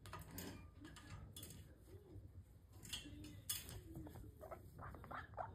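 Amazon parrot giving a quick run of short repeated calls, about five a second, starting faint about four seconds in and growing louder; before that only scattered light clicks and taps.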